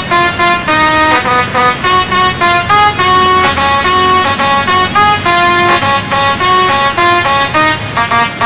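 Indonesian "telolet" bus horn, a multi-tone air horn, playing a quick melody. The notes change about three or four times a second.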